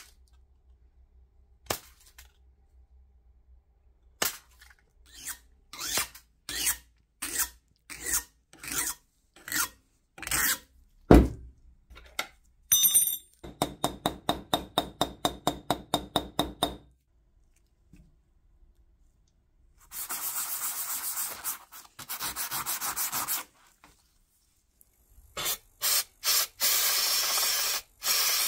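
Tin snips cutting thin sheet metal in about a dozen separate snips. Then quick rubbing strokes, about five a second, smoothing the cut oval plate. Near the end, an aerosol spray can hissing in two long bursts.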